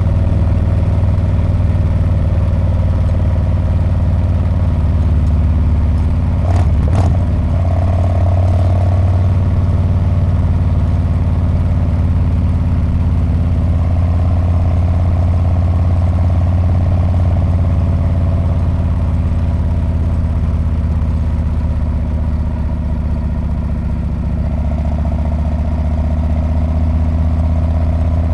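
Harley-Davidson Street Bob's V-twin engine and exhaust running steadily under way, its pitch swelling and easing only slightly. A brief knock sounds about six and a half seconds in.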